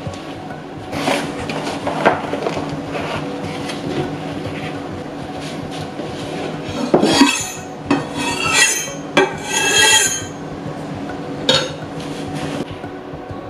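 Kitchen utensils handled against dishes: a few scattered knocks, then a run of scraping, rubbing strokes about seven to ten seconds in.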